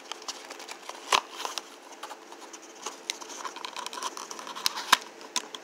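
Candy box and wrapping being handled and rummaged through: light rustling and scraping with scattered sharp clicks, the loudest about a second in and twice near the end.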